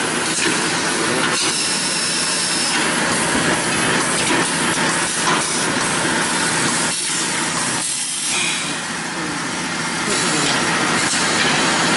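Paper tube making machine running steadily: a loud, even hiss-like factory noise with faint knocks.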